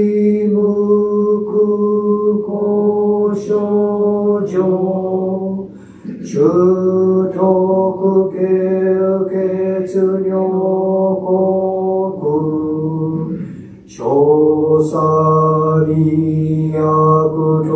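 A man's voice chanting a Buddhist text in long phrases held on a nearly level pitch, pausing for breath about six and fourteen seconds in.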